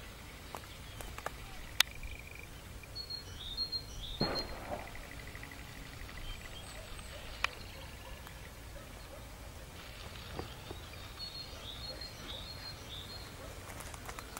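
Countryside ambience: birds chirping in short high phrases in two bouts, over a steady low wind rumble. A sharp click sounds about two seconds in, and another a little past the middle.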